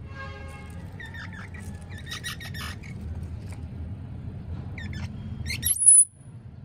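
Baby squirrels squeaking and chirping in short high-pitched bursts, ending in one very shrill, loud squeal about six seconds in, over a steady low background rumble.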